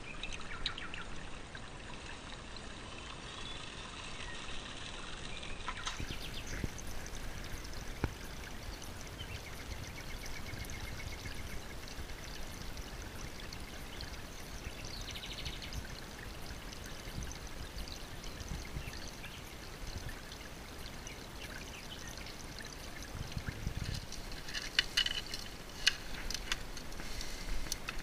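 Creek water pouring and trickling through a gold-prospecting sluice box in a steady rush. A few sharp clicks and knocks come near the end.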